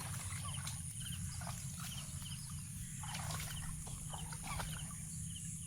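Outdoor ambience with animal calls: short high chirps recur about once a second over a steady low rumble, with a few brief clicks.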